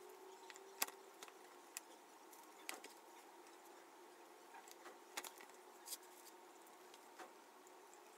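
Faint crinkling and scattered sharp clicks of a crumpled paper-and-plastic paper mâché form being handled, over a steady faint hum.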